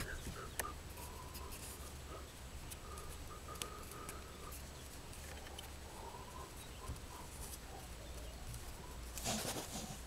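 Faint rustling and clicking of thin electrical wires being twisted together by hand, with a brief louder rustle about nine seconds in. Faint animal calls sound in the background.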